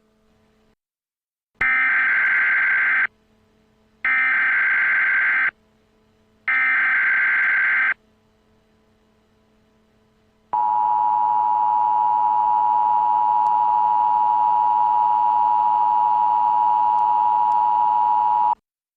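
Emergency Alert System tones: three short bursts of SAME header data, each about a second and a half of buzzing warble, followed by the two-tone attention signal held steady for about eight seconds before it cuts off. The tones signal that an emergency warning message, here a tornado warning, is about to be read.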